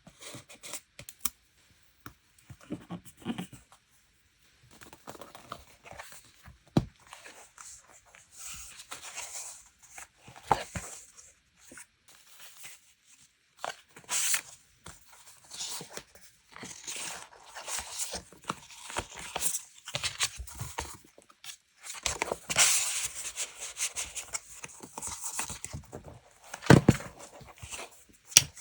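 Paper being handled close up: irregular bursts of rustling, crinkling and tearing, with a few sharp taps and clicks, as paper pieces and sticker sheets are worked onto a journal page.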